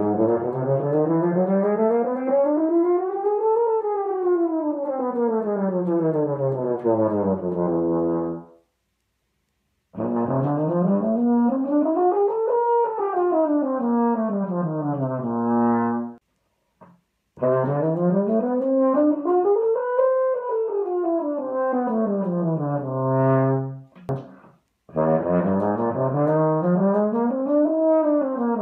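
Euphonium playing chromatic scales, each run climbing note by note and coming back down. There are three full runs with short breaks between them, and a fourth begins near the end.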